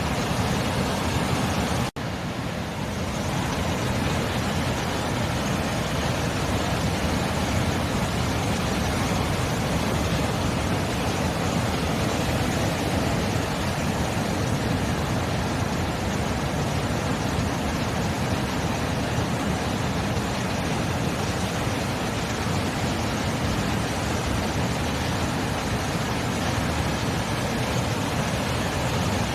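Sea surf: a steady, unbroken rush of waves, which cuts out for an instant about two seconds in and comes straight back.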